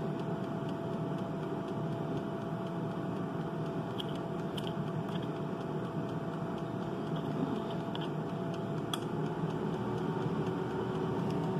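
Britânia air fryer running, its fan and heater giving a steady hum, with a few faint clicks as its dial is handled.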